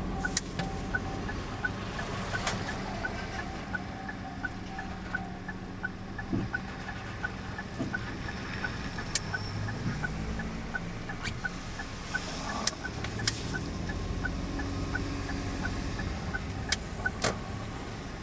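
Japanese level-crossing warning bell ringing steadily, an even ding repeated a few times a second. Under it is the low rumble of passing trains, with sharp clicks, and the rumble grows near the end.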